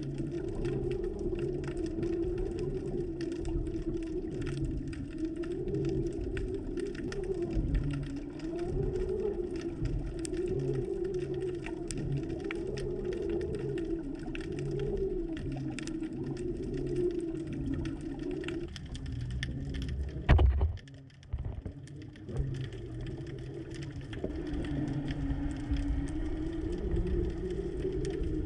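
Underwater noise picked up by a submerged camera: a low drone that wavers slowly up and down in pitch, with scattered faint clicks. A sharp knock comes about twenty seconds in, followed by a brief quieter spell.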